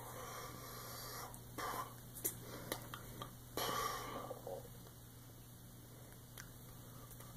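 A person breathing audibly through nose and mouth, with several short breaths and sniffs, while his hands make soft taps and rustles as he signs. A steady low hum sits underneath.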